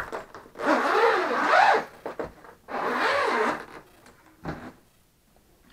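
The zipper around a hard-shell drone case being unzipped in two long pulls, with a wavering rasp, then a short knock.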